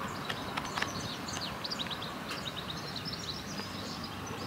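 Small birds chirping: a run of quick, high, downward-slurred notes over steady background noise, with a couple of light clicks in the first second.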